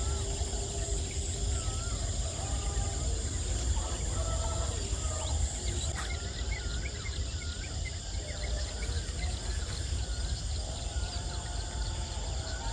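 Evening wetland ambience: insects keep up a steady high drone, with scattered short wavy bird calls over it and a low rumble of wind on the microphone.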